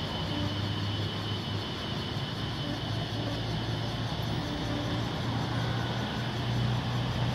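Road traffic: cars driving past on a city street, a steady low drone of engines and tyres that swells a little near the end.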